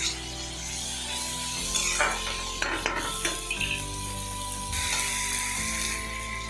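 Onion, tomato and garlic-paste masala sizzling in mustard oil in a kadai, stirred with a spatula that scrapes against the pan a few times around the middle, over soft background music.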